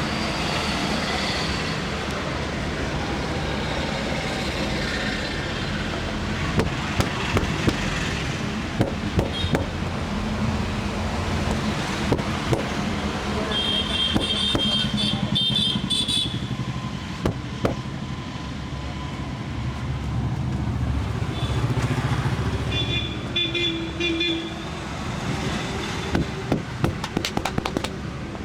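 Busy road traffic with a steady rumble and a vehicle horn honking twice, in the middle and near the end. Bursts of quick sharp slaps from hand tapping during a head massage come a few seconds in and again near the end.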